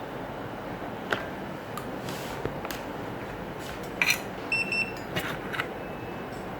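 A few light clicks and taps of small repair tools, with a short high electronic beep about four and a half seconds in, over a steady hiss.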